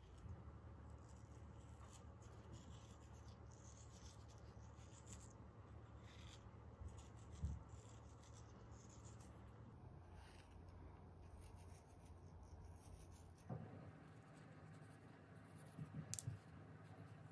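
Very faint scratchy rubbing of a silicone pastry brush dabbing egg yolk over pide dough, which fades out about ten seconds in, with a few soft knocks scattered through.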